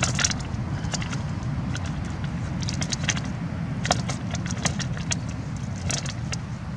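Scattered sharp clicks and clinks as a cast net's sinkers and the beach cobbles knock together while the net is worked by hand to free tilapia. Under them runs a steady low rumble of wind on the microphone.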